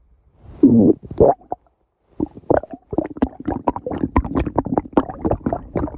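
A stomach growling: a gurgling growl that bends in pitch from about half a second in, a short pause, then from about two seconds on a fast, irregular run of bubbly gurgles and pops.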